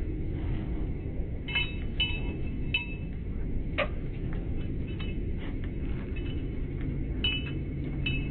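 Light metallic clinks and jingles, several scattered irregularly, each ringing briefly, over a steady low rumble.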